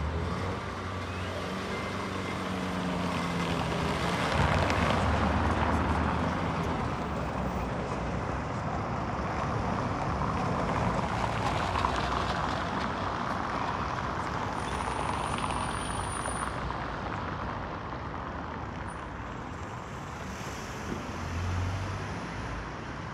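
Street traffic: cars driving past, tyres rumbling over stone-sett paving, with one vehicle passing louder about four to six seconds in.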